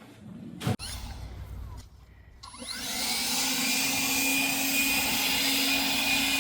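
A sharp click, then about two and a half seconds in a leaf blower spins up with a rising whine and settles into a steady, loud rush of air with a constant hum and a high whine, clearing hay off the ground.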